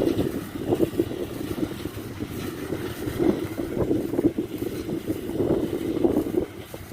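Rice combine harvester's engine running steadily under load, with wind buffeting the microphone; it falls off somewhat near the end.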